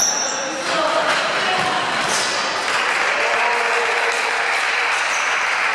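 Echoing din of a futsal match in play in a sports hall: a dense, steady noise of play with a few sharp knocks of the ball being kicked and brief shouts from the players.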